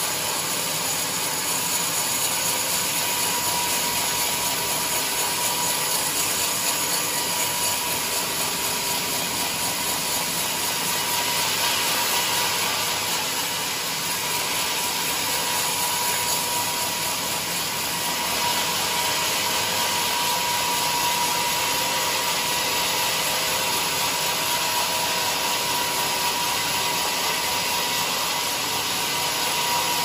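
Band sawmill's blade ripping lengthwise through a teak plank: a steady, unbroken sawing noise of blade and motor, with a thin steady high tone running through it.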